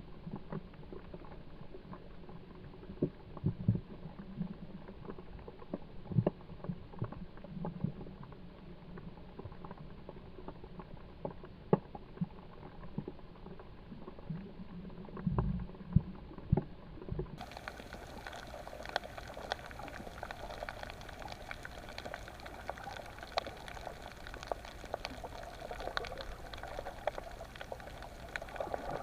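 Underwater bubbling and crackling clicks with occasional low thumps. It sounds muffled at first, then turns abruptly brighter with denser clicking about 17 seconds in.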